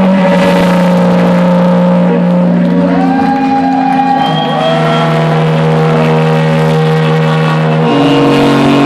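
Electronic music played loud over a club sound system: held synth bass notes that step to new pitches a few times, with gliding synth tones rising and falling over them in the middle, and no clear beat.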